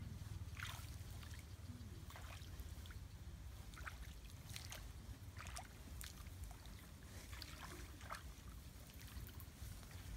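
Footsteps wading through shallow water and mud in a flooded rice paddy: irregular soft splashes and squelches, about one or two a second.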